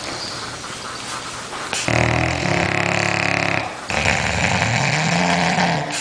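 A sleeping dog snoring: a quiet breath, then two loud snores of about two seconds each, about two seconds in and about four seconds in. The second snore is higher and rises then falls in pitch.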